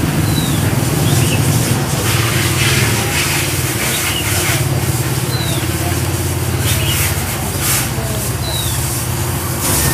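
Thin plastic bag crinkling and rustling in spurts as jackfruit pieces are bagged, over a steady low motor hum. A few short high chirps sound now and then.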